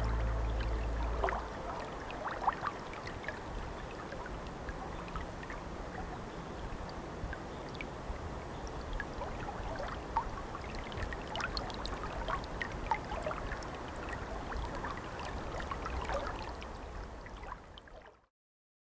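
Flowing water trickling and gurgling, like a small stream, after a held music chord stops about a second in; it fades out near the end.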